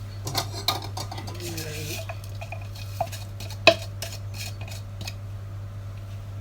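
A utensil scraping and clinking against a baking tray as buttered crushed digestive-biscuit crumbs are spread and pressed into it for a cheesecake base, with scattered knocks, the sharpest about three and a half seconds in.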